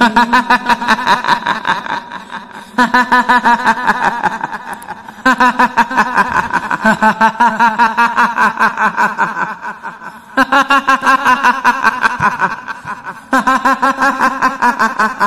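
Kuntilanak ghost's cackling laugh, a rapid 'hihihi' repeated about six or seven times a second, in five bouts of laughter.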